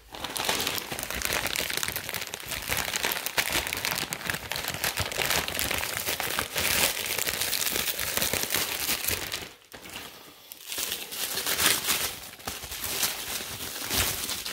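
Plastic packaging, a bag and bubble wrap, crinkling and rustling as it is handled and unwrapped, with a brief pause about two-thirds of the way through.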